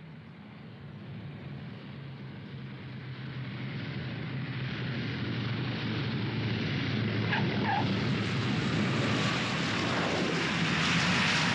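Four-engine propeller airliner landing: a steady engine drone with rushing noise that grows louder as the plane comes in and rolls past, loudest near the end.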